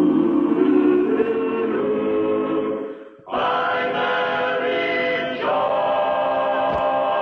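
Sitcom closing theme music with a choir singing long held chords. It breaks off briefly about three seconds in, then comes back on a new chord that changes again a couple of seconds later.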